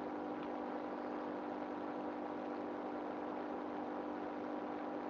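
Steady, unchanging hum with a faint hiss: room tone.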